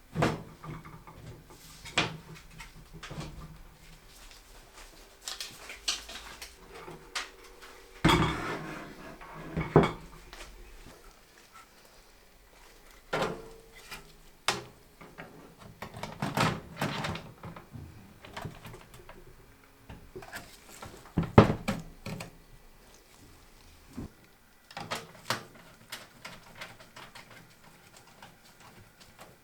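Computer parts being handled and fitted into a PC case: scattered clicks, knocks and short rustles of plastic and metal, with one sharper knock about two-thirds of the way through.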